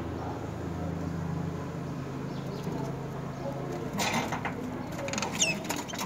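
Steady low hum with background noise, then about four seconds in a short rustling, fluttering burst as the adult myna leaves the nest. A brief high rising squeak from the nest follows near the end.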